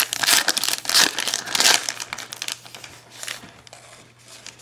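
Plastic trading-card wrapper crinkling as it is pulled open by hand, loudest in the first two and a half seconds, then softer and sparser.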